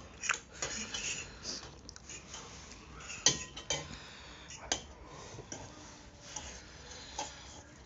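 Forks and spoons scraping and clinking against metal plates while noodles are eaten, in scattered irregular clinks; the sharpest comes about three seconds in.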